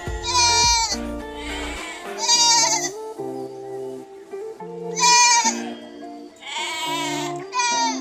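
Goat bleating about five times, short wavering calls, over background music.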